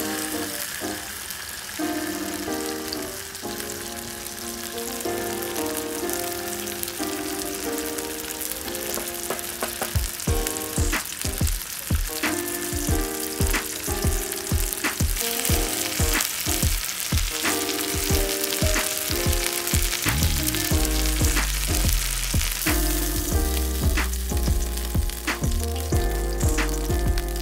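Thick beef steak sizzling on a barbecue, over background music; drum beats join about ten seconds in, and a deep bass line comes in near the end.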